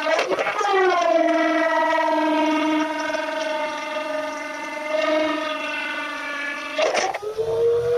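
Electric trim router whining as its 6 mm bit cuts through 12 mm plywood, its pitch sagging under load. About seven seconds in, the bit comes free and the motor runs on at a higher pitch.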